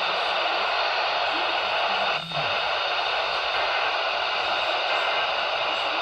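Radio static: a steady hiss from a weather-radio receiver on a weak signal, dipping briefly a little over two seconds in.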